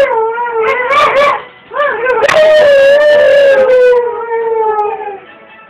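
Husky "talking": a few short, wavering howl-like calls, then one long howl from about two seconds in that slides slowly down in pitch and fades out near the end.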